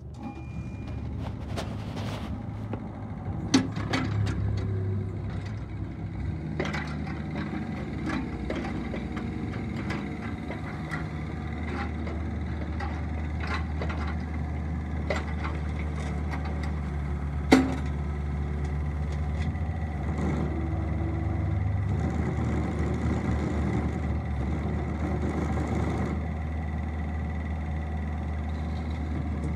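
Kubota KX71 mini excavator's diesel engine running steadily as the machine tracks and turns over gravel, with scattered clicks and clanks from the tracks and gravel and two sharp knocks, about three and a half seconds in and again about seventeen seconds in.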